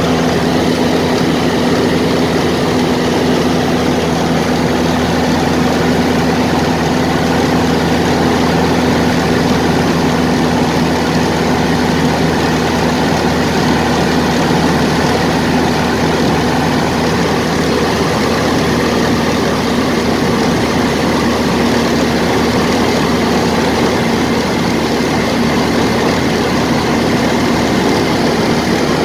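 Ercoupe light aircraft's air-cooled flat-four piston engine and propeller running steadily in flight, heard from inside the cockpit.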